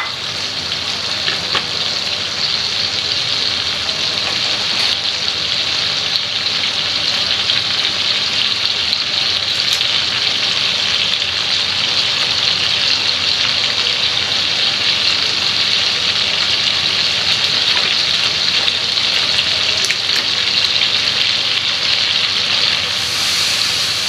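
Frying pan sizzling steadily: prawns and capsicum cooking in hot oil with the noodle spice mix, a few faint ticks here and there.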